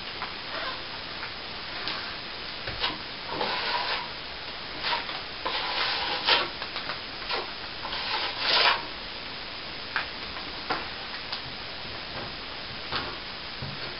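Steel plastering trowel scraping over a ceiling patch, polishing the finish coat smooth. There are several scraping strokes about a second long, the longest near the middle, with light clicks and taps between them.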